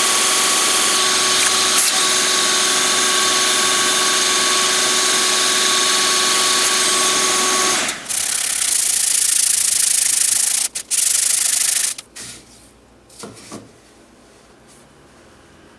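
Wood lathe running with sandpaper held against the spinning maple blank: a steady motor whine under a loud sanding hiss. The motor tone stops about 8 seconds in, a loud hiss goes on with a short break until about 12 seconds, and then there are only a few soft knocks.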